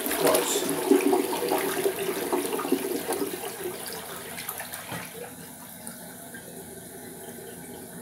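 Toilet flushing: a rush of water that fades over the first four to five seconds, settling into a steadier hiss of the tank refilling. The owner complains that this toilet flushes slowly.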